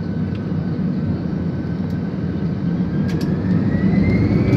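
Jet engines of an Airbus A320-family airliner at takeoff power, heard from inside the cabin during the takeoff roll. A steady deep rumble carries a thin whine that starts rising in pitch about three seconds in, and the sound grows louder toward the end.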